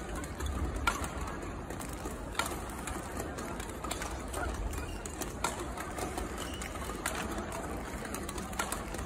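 Badminton rackets striking a shuttlecock in a rally: sharp hits about every one and a half seconds, over a steady background hum of the sports hall.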